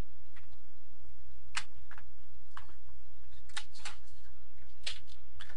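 Steady low hum on the audio line, with faint small clicks at irregular intervals, about eight of them.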